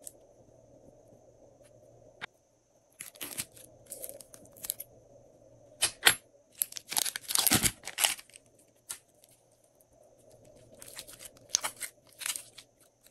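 Plastic piping bag of glossy slime crinkling and crackling as it is squeezed and handled, with the slime squishing. The sound comes in three spells of crackles, the loudest about seven seconds in.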